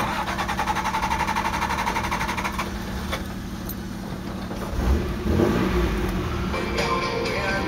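1988 Toyota 4Runner's engine running at low speed as the truck crawls over a rocky trail, with a brief rise in revs about five seconds in.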